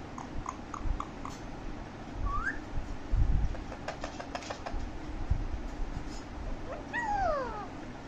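Alexandrine parakeet whistling: a few short chirps, a rising whistle, then a run of quick clicks, and near the end a long falling whistle. A low thump about three seconds in.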